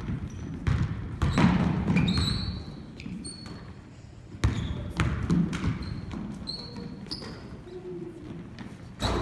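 Basketballs bouncing on a hardwood gym floor during a scrimmage, a run of sharp knocks mixed with players' running steps and short high squeaks of sneakers.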